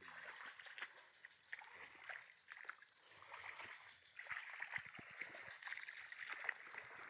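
Faint sloshing and splashing of legs wading through shallow swamp water, with small clicks and rustles of marsh grass, over a steady high hiss.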